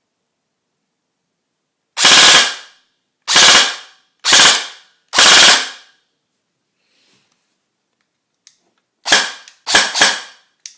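Custom Socom Gear VFC M4 airsoft rifle firing: four loud, sharp reports about a second apart, then after a pause three more in quick succession near the end.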